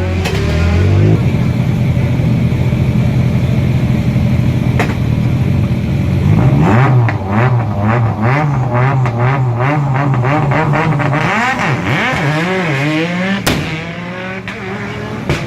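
Rally car engine revving, its pitch bouncing up and down in quick pulses for several seconds, with a run of regular sharp cracks about seven seconds in and single loud bangs near the middle and near the end.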